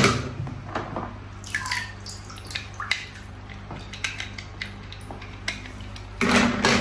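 Small plastic toy cars clattering against one another and the basin as a hand rummages through them, about six seconds in as well as at the start, with scattered single clicks and water drips from the wet hand and toy in between.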